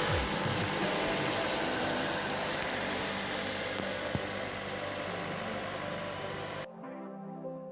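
A car engine running steadily with a rushing noise that slowly fades. Near the end it cuts off abruptly and music takes over.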